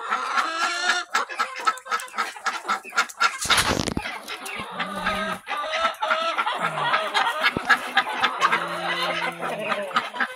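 A flock of hens clucking and calling over one another, with many short clicks and a single loud thump about three and a half seconds in.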